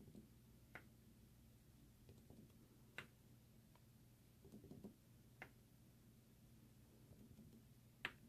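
Faint light taps of a clear acrylic stamp block on an ink pad and on card stock, four small clicks a couple of seconds apart over near silence.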